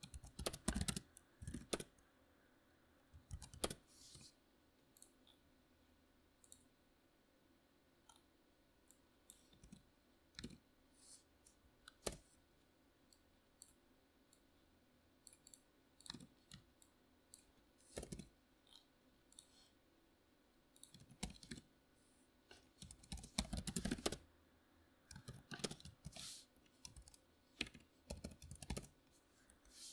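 Membrane keyboard typing in short, scattered bursts and single keystrokes with pauses between, and a dense run of keystrokes about three-quarters of the way through.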